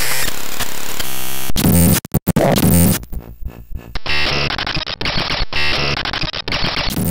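Synthesized sci-fi noise effects: loud, harsh electronic static and glitchy buzzing that switch abruptly from one texture to another, with brief cut-outs about two seconds in and near the end.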